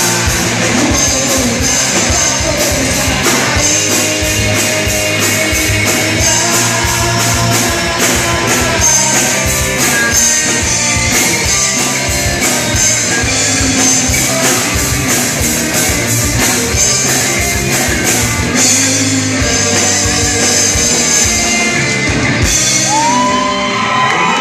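Hard rock band playing live: guitars, fast driving drums and shouted singing. The drumming drops out near the end as the song winds down.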